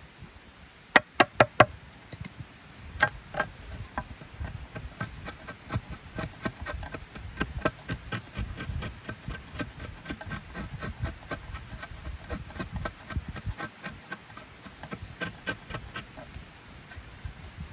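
A knife blade carving a notch into a wooden log: four sharp knocks about a second in, then a long run of short, quick shaving cuts as chips are pared out of the wood.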